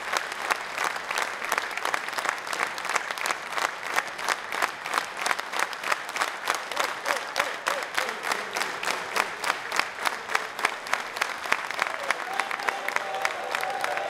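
An audience applauding, the clapping soon falling into a steady rhythmic beat in unison, a few claps a second.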